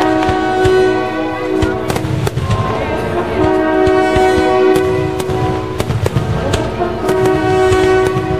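Fireworks and firecrackers going off in a dense run of sharp bangs, over long held horn-like notes, each sounding for about two seconds, three times.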